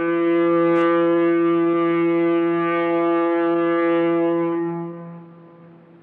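Foghorn sounding one long, steady, deep blast of about five seconds, which then fades away in a trailing echo.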